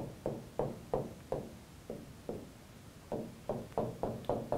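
A pen tip tapping against a board, one sharp tap per dot as answer bubbles are marked down a column. There are about a dozen taps, with a short pause in the middle and a quicker run near the end.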